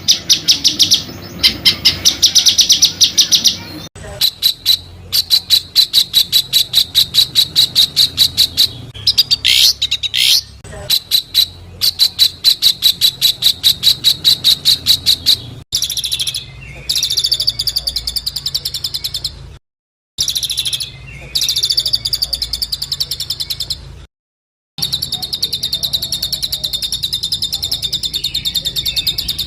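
An African songbird singing fast, even runs of sharp, high repeated notes, several a second. The recording is edited and drops to silence abruptly twice.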